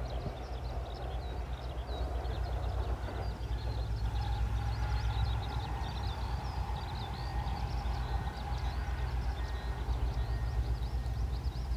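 Wind rumbling on the microphone, with birds chirping steadily throughout. A faint steady hum comes in about four seconds in and fades out about five seconds later.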